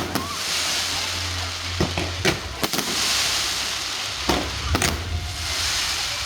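Fireworks crackling and hissing in a steady shower, with several sharp bangs and pops scattered through it.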